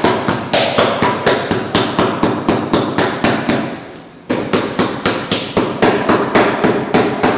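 Shoemaker's hammer beating a rubber Vibram Ripple sole down onto a boot held on a shoe last, in quick even blows about four a second. The hammering breaks off for about a second midway, then starts again.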